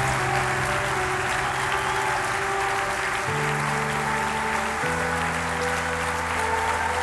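Applause over background music of long held chords, which change twice partway through.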